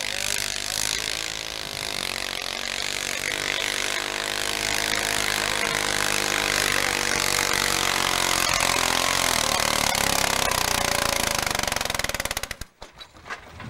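Modified pulling garden tractor's engine running hard under heavy load as it drags a weight-transfer sled, growing slightly louder, then cutting off suddenly near the end.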